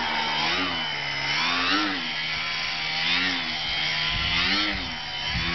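Electric RC airplane's motor and propeller whining as the plane hovers nose-up. The pitch swells up and falls back four times as the throttle is worked to hold the hover.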